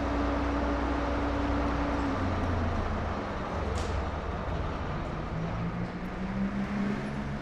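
Bus terminal ambience: large bus engines idling with a steady low drone, a brief hiss of air about four seconds in, and an engine note rising in pitch near the end.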